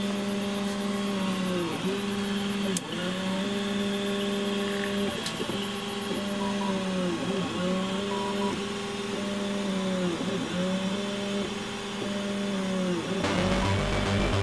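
Stepper motors of a Prusa-style 3D printer running during a print: a steady pitched whine that dips and returns every second and a half or so as the head makes one long move after another. Electronic music comes in near the end.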